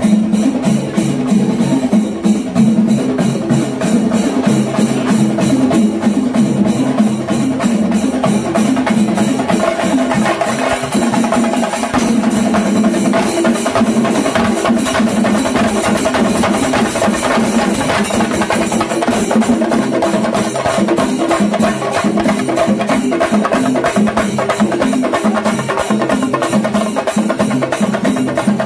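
Kerala chenda melam: chenda drums beaten in a fast, steady rhythm with elathalam hand cymbals clashing along, over a sustained melody line.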